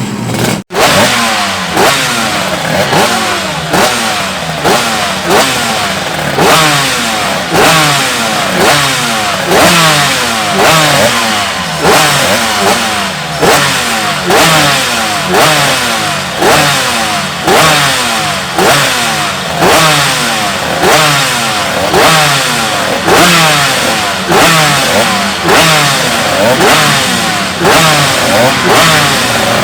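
Two-stroke racing motorcycle engine being revved in repeated throttle blips, about one a second, each rise sharp and the revs falling away after it.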